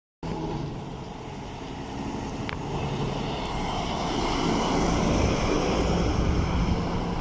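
DAF lorry hauling a curtainsider trailer approaching and passing close by, its diesel engine and tyres growing louder to a peak as it goes past.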